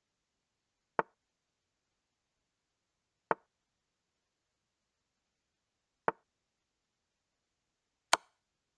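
Chess app's piece-move sound effect: four short clicks, one for each move, spaced about two to three seconds apart.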